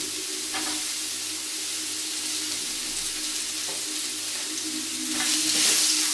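Chopped onions sizzling in olive oil in a hot nonstick grill pan, a steady hiss. About five seconds in the pan is stirred and shaken, and the sizzle grows louder.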